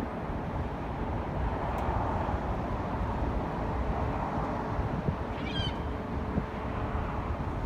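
Steady outdoor wind and traffic noise, with one short, high-pitched bird call about five and a half seconds in.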